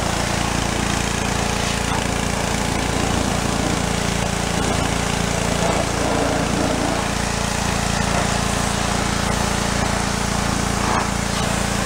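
Pressure washer running steadily, a small engine droning under the hiss of the water jet striking a fiberglass hull.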